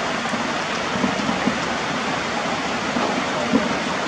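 Heavy rain falling steadily in a steady hiss, with a few brief louder taps.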